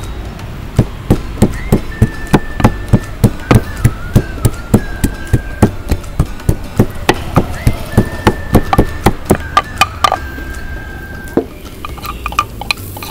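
Wooden pestle pounding garlic cloves in a wooden mortar: a steady run of knocks, about three a second, stopping about ten seconds in.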